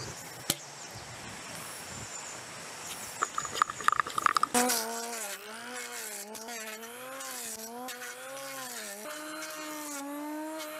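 Handheld angle grinder cutting into a wooden log. From about four and a half seconds in, its motor note dips and recovers again and again as the disc bites into the wood, then settles at a higher, steadier pitch near the end. Before that there is a faint hiss with a few light knocks.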